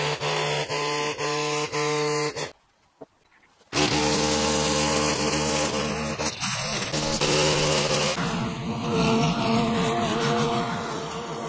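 Petrol line trimmer engine running, cut off by a brief silence about three seconds in and then running again. Toward the end it gives way to a petrol lawn mower engine running.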